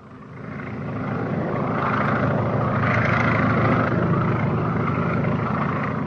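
Propeller airplane engine droning as it flies past, swelling over the first couple of seconds, loudest around the middle, then starting to fade near the end.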